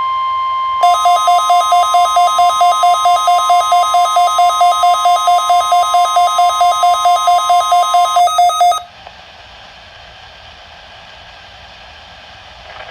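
NOAA Weather Radio warning alarm tone, a steady 1050 Hz tone sent for the weekly test, with a second alarm beeping rapidly over it, about five beeps a second, from about a second in. The steady tone stops at about eight seconds and the beeping just after, leaving plain radio hiss.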